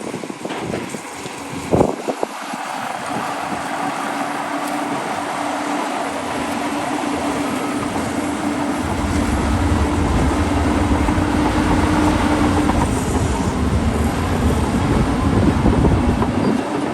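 Heavy diesel earthmoving machine working close by: the engine runs steadily with a held whine, growing louder and deeper about halfway through and easing off at the very end. A sharp knock sounds near the start.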